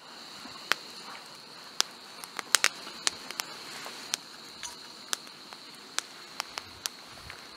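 Backpacking canister stove burning under a small pot of water at a rolling boil: a steady high hiss with irregular sharp clicks and pops.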